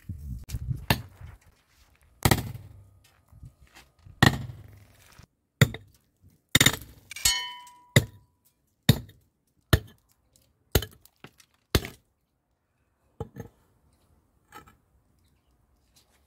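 Restored antique pickaxe's steel head striking concrete and hard ground: about a dozen sharp blows at irregular intervals, one near the middle ringing briefly with a metallic tone.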